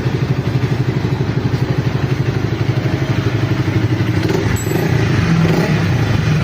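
Honda XR400's air-cooled single-cylinder four-stroke engine running through an open T-4 muffler, an even, rapid exhaust beat at idle. A little under five seconds in it picks up slightly, running a bit louder and faster.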